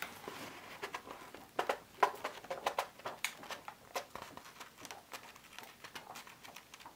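Paper pages of a graphic novel being flipped by hand: a run of light, irregular rustles and soft taps, quick at first and then more spread out.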